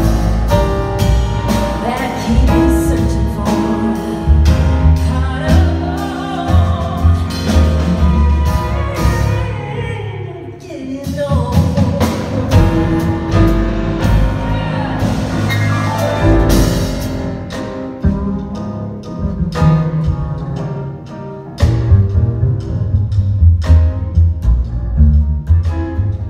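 Live jazz piano trio playing: grand piano, upright bass and drum kit. The music eases off about ten seconds in and builds again a little after twenty seconds.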